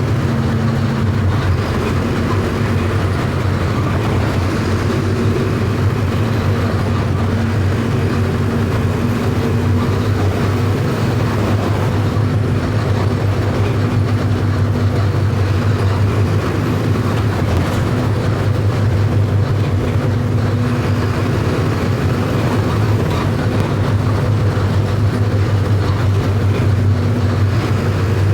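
Mercedes-Benz OF 1519 bus's electronic four-cylinder diesel engine running steadily while the bus is driven, a low, even drone with no revving.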